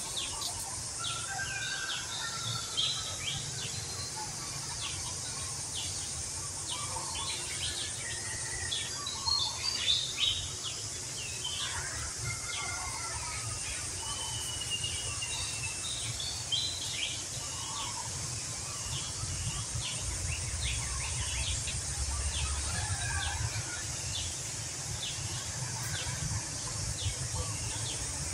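Many small birds chirping and twittering in quick, overlapping calls over a steady high insect drone, with a low rumble underneath.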